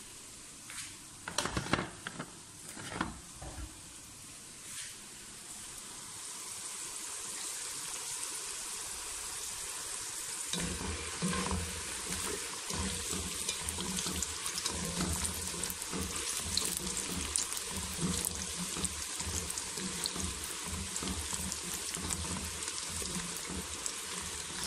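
Potato fries deep-frying in hot oil in a pot: a steady sizzle full of small crackles, building over the first several seconds after a few knocks near the start. A low hum joins about ten seconds in.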